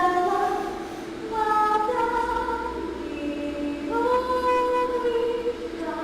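A female voice singing a slow melody of long held notes over a steady sustained accompaniment note, in an echoey recording.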